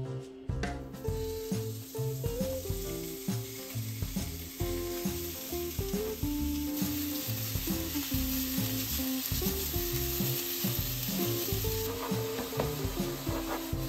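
Sliced pork sizzling in oil in a hot frying pan, the sizzle starting about a second in as the meat goes in, and it is stirred with chopsticks. Soft background music with a bass line plays underneath.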